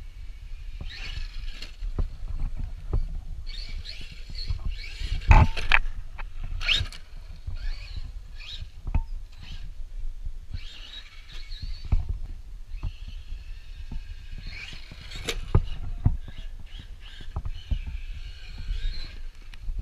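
Traxxas Maxx electric RC monster truck driving in bursts of throttle: its motor and drivetrain whine rises and falls five or six times, with sharp knocks as it hits bumps, over a steady low rumble.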